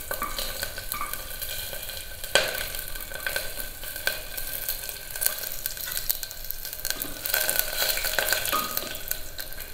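Garlic and chillies sizzling and crackling in hot ghee in a pan, stirred with a spoon that scrapes and clicks against the pan, with one sharper knock about two and a half seconds in.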